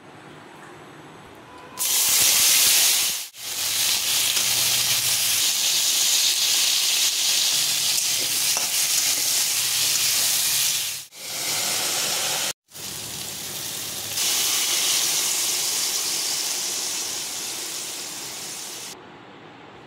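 Potato, pumpkin, carrot and long-bean pieces sizzling loudly in hot oil in a wok, broken by a few sudden short gaps. Toward the end the hiss grows stronger as water is poured into the hot pan, then drops off suddenly.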